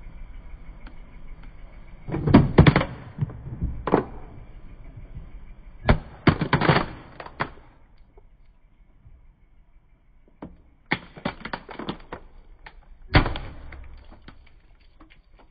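A hollow plastic toy pickup truck cracking and snapping as a car tyre rolls onto it and crushes it, in three bursts of sharp cracks a few seconds apart.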